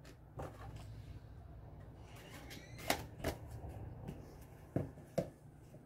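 Cardboard Blu-ray digibook being handled and put back into its collector's box: soft rustling with a few sharp, light clicks.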